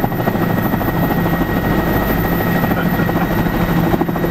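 Helicopter engine and rotor noise heard from inside the cockpit in flight: a loud, steady drone with a low hum and a thin high whine held throughout.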